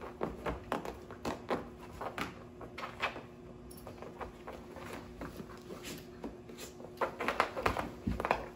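Puppies scuffling on a collapsed nylon pop-up dog tent: fabric rustling and crinkling with scattered sharp clicks and knocks, busier and louder about seven seconds in. A faint steady hum runs underneath.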